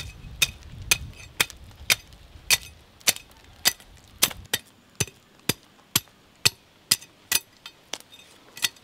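Knife strikes on a large trevally, a steady run of sharp chops about two a second, as its spines are cut off.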